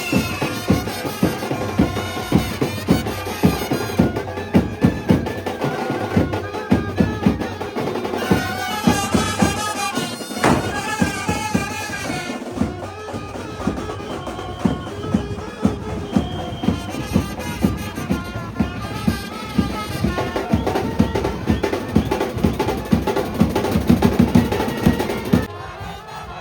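Brass band playing: wind instruments carry a wavering melody over dense, fast drumbeats. The music drops away shortly before the end.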